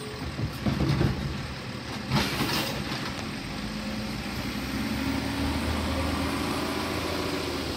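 Side-loading garbage truck at the curb: a few knocks in the first second as the automated arm sets the emptied cart down, a short hiss about two seconds in, then the diesel engine running steadily and rising slightly in pitch as the truck pulls away.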